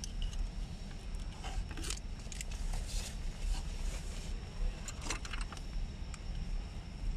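Plastic wiring-harness connectors and cables being handled behind a car dashboard, with scattered small clicks and rattles over a steady low hum.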